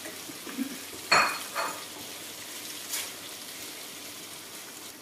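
Chili paste frying in a steel wok with a steady sizzle, while a metal spatula knocks and scrapes against the wok a few times, loudest about a second in.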